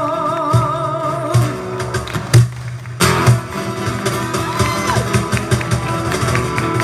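Live band music: a singer holds a long note with vibrato over guitar. About two seconds in, the band hits a loud accent and drops out for about half a second, then comes back in with guitar and drums.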